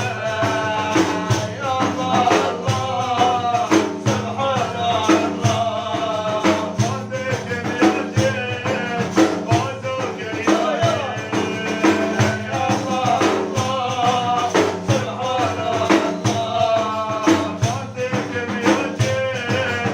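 Kurdish madih, a devotional praise song, sung by a male voice in a melismatic line over frame drums beaten in a steady rhythm, with a jingling, tambourine-like rattle.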